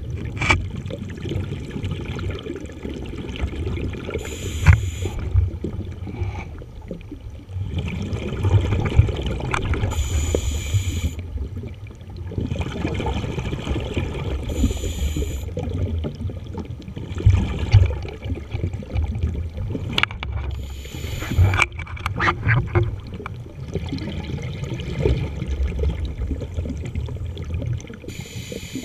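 Underwater sound of a scuba dive: a steady, muffled low rumble of water against the camera housing. Every few seconds a hissing rush of a scuba regulator's breathing and exhaled bubbles cuts in, and a few sharp knocks come around two-thirds of the way through.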